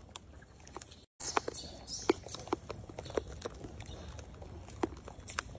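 Rhesus macaques chewing and cracking dried corn kernels: irregular sharp clicks and crunches, with a brief gap about a second in.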